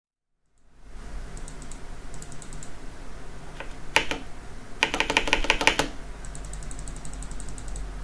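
Steady fan noise from a mini-ITX PC whose RTX 4070 is held at full load by the Furmark GPU stress test. Over it come mouse clicks and Cherry MX Brown spacebar keystrokes tapped on the desk as a loudness reference, loudest as a quick run of keystrokes about five seconds in.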